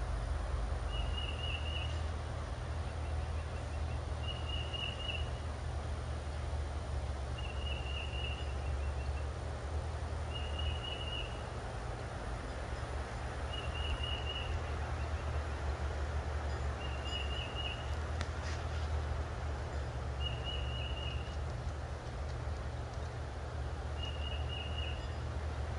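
Outdoor ambience: a short, rapidly pulsed high call repeated about every three and a half seconds, eight times, over a steady low rumble.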